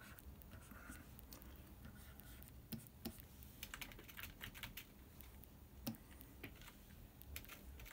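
Faint, irregular clicks of computer keyboard keys being tapped, a few of them sharper than the rest, over quiet room tone.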